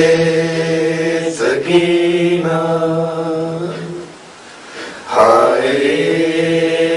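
A male voice singing long, steady held notes in a chant-like style, pausing briefly about a second and a half in and again for about a second before the last note.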